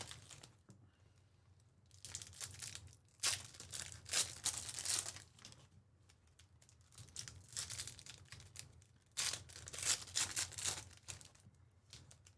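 Foil trading-card pack wrappers, 2024 Panini Prizm Football hobby packs, being torn open and crinkled in irregular bursts with short pauses between.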